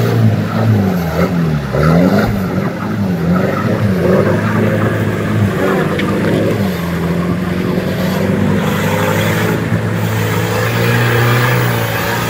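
Toyota Land Cruiser off-roader's engine revving up and down repeatedly, struggling through deep river water, with water splashing and rushing against the body. About seven seconds in the engine settles into a steady higher note.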